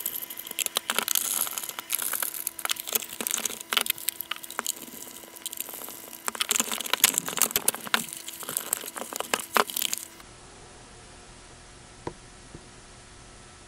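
Screwdriver scraping and clicking against the plastic back case of a Hantek 2D72 handheld oscilloscope, with irregular rattles and knocks as the case is handled. This goes on for about ten seconds, then stops abruptly. Near the end comes a single sharp click of a front-panel button being pressed, with a fainter click just after.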